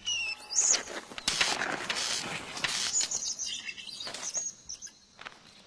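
Short high chirping calls over a rush of fluttering noise, loudest from about one to three seconds in, then fading away.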